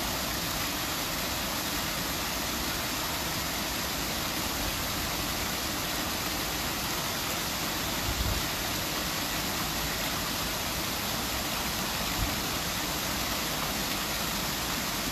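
Waterfall cascading down stepped rocks: a steady rush of falling water. Two brief low thumps come about halfway through and again a few seconds later.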